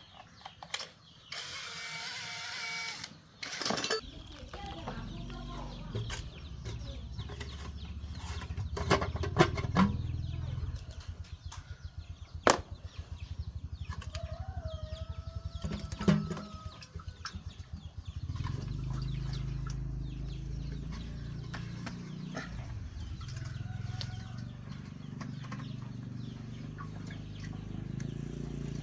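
A 196 cc single-cylinder small petrol engine starting about four seconds in and running with a fast low pulse, its speed uneven through the middle, then settling into a steadier run. Chickens cluck and a rooster crows near the start.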